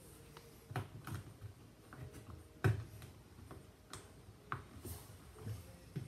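Irregular clicks and light metal knocks from hands and a tool working at the steel door hinge of a Miele washing machine, the loudest about two and a half seconds in.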